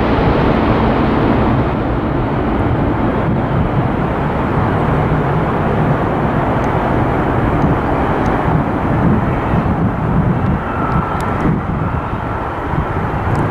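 Jet airliner's engines, a loud steady rumble whose high hiss fades over the first few seconds as the aircraft moves on.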